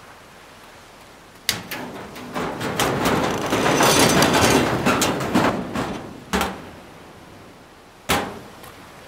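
Clatter of a door and loose junk. A sharp knock, then a rattling of metal and wood full of small clicks that swells over a couple of seconds and dies away, with another knock about six seconds in and a sharp bang near the end.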